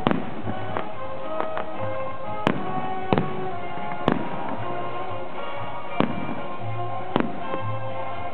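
Aerial firework shells bursting, about half a dozen sharp bangs a second or two apart, with music underneath.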